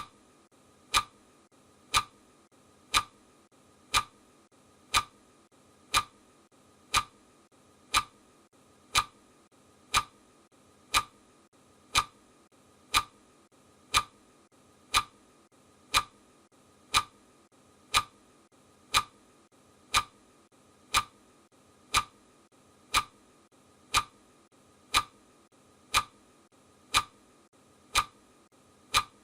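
Clock-style ticking sound effect, one sharp tick each second, over a faint steady hiss.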